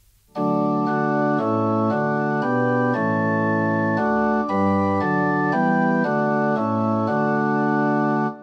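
Organ playing a slow passage of held chords that change about once a second. It starts about half a second in and breaks off briefly near the end.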